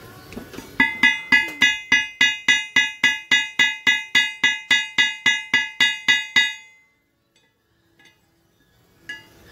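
Hammer blows on steel at the anvil, struck at a steady rhythm of about three and a half a second, each blow ringing; the hammering stops about six and a half seconds in.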